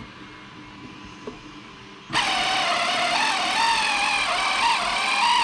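Brushless electric motor of a 3D-printed RC outboard spinning up suddenly about two seconds in, then running with a high whine whose pitch wavers up and down with the throttle. Two of its leads have been swapped, which reverses the motor's direction.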